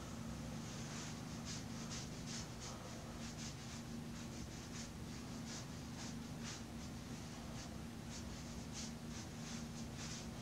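Watercolor brush strokes on textured watercolor paper: short, faint scratchy swishes, a few a second and unevenly spaced, over a steady low hum.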